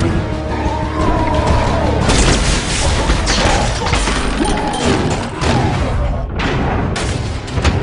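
Action-film soundtrack: a music score under a dense run of booms and metal crashes from a fight between giant robots, with a sudden sharp hit near the end.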